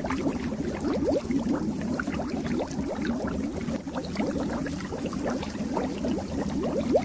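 Fish-tank water bubbling steadily, a constant stream of small bubbles popping and gurgling.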